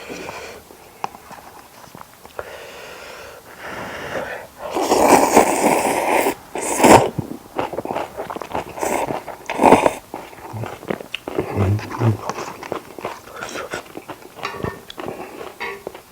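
A person eating close to the microphone: chewing and small mouth clicks, with a loud breathy burst lasting about a second and a half about five seconds in and shorter sharp breaths near seven and ten seconds.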